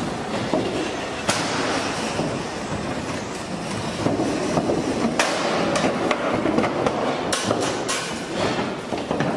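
Clanking and knocking of a livestock trailer's gate and ramp as the gate inside is swung open, with cattle hooves clattering on the ramp as the animals come off near the end.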